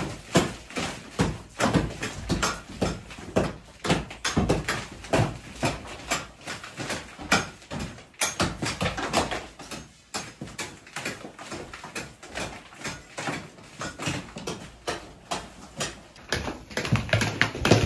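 Rapid, irregular knocking and tapping, several sharp knocks a second, without pause.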